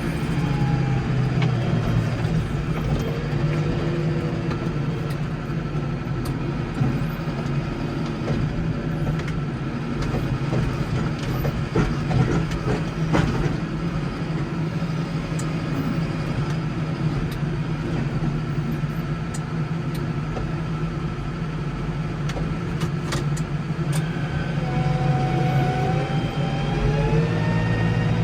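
Case 115U garden tractor's engine running steadily under load while clearing snow, with a few brief knocks in the middle. The engine's pitch shifts up and down near the end.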